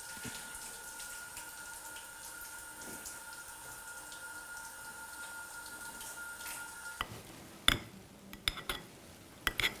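White sauce poured from a metal pot over sliced potatoes, with faint dripping liquid sounds over a faint steady hum. About seven seconds in, a knife clicks and taps several times against a glass plate as hard-boiled eggs are cut.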